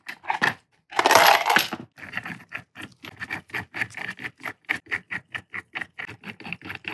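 Steel cam-lock studs (spindle locks) clinking against each other and against the lathe chuck's backplate as they are handled and set into their holes: a quick run of small metallic clicks, with a louder burst of metal clatter about a second in.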